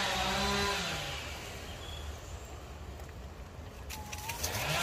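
A motor running with a steady pitched drone that winds down about a second in and winds back up near the end.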